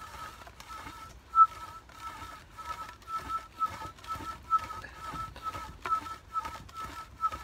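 Wooden spindle of a fire churn squeaking against the wood as it is drilled back and forth by rope, at about three squeaks a second, with one louder squeak about a second and a half in. It is the wood-on-wood friction of a friction-fire drill building heat toward an ember.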